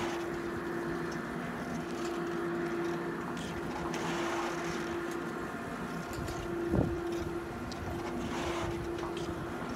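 Riblet double chairlift's top drive terminal running: a steady machine hum from the drive turning the bullwheel, with a single clunk about seven seconds in.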